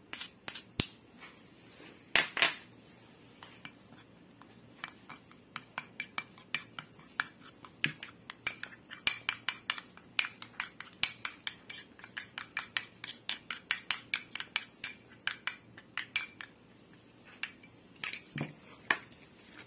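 Metal spoon clinking and scraping against ceramic while stirring melted butter and minced garlic in a small ceramic bowl. A few scrapes come first as garlic is scraped off a ceramic dish, then a steady run of light clinks, about two to three a second, from about five seconds in.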